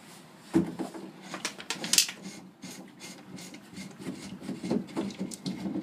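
Plastic water-filter housing bowl being unscrewed by hand from its cap: irregular rubbing and scraping of the threads, with scattered clicks and a sharper knock about half a second in.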